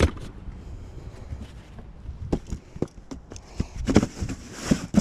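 A folding cart's fabric bag and frame being opened out and handled: an irregular run of sharp clicks and knocks, a few a second, loudest near the end.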